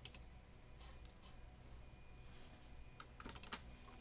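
Faint clicking from working a computer's mouse and keys: one click at the start, a couple of light ones about a second in, and a quick run of clicks near the end, over a faint steady low hum.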